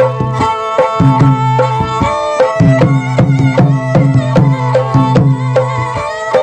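Instrumental music: a melody over a low held tone, with drum strokes in a steady rhythm.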